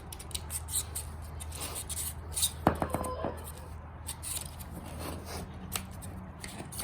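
Knife blade cutting and scraping through a rubber control-arm bushing in an aluminum control arm, in short irregular strokes, with one sharp metallic clink that rings briefly about two and a half seconds in, over a steady low hum.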